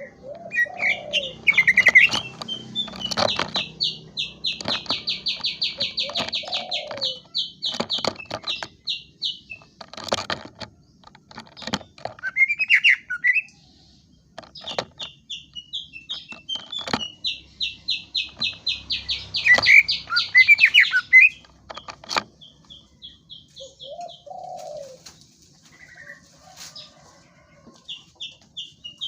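Cucak ijo (greater green leafbird) singing: two long runs of rapid, evenly repeated high notes, each broken up by swooping slurred notes, with sharp clicking notes scattered between the phrases.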